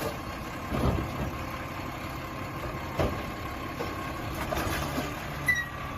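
Garbage truck engine idling steadily, with two soft knocks about one and three seconds in.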